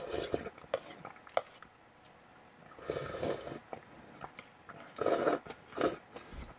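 Eating at a plastic bowl of noodle soup: a few short slurps of noodles and broth, with light clicks of chopsticks against the bowl near the start.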